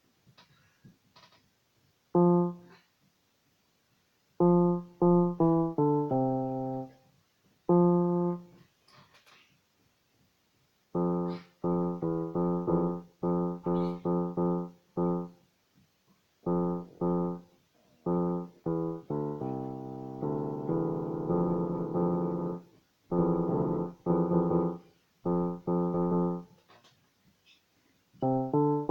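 Casio CTK-100 electronic keyboard playing single notes in short runs with pauses, and a denser flurry of overlapping notes about two-thirds through. The keys are being tried one after another to show that some of them make a bad sound, a fault that cleaning has not cured.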